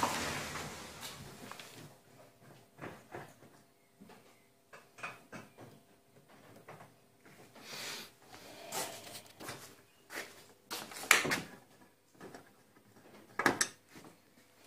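Scattered light knocks and clicks from hands handling a car's rear body and taillight housing, with a sharp knock about eleven seconds in and another near the end.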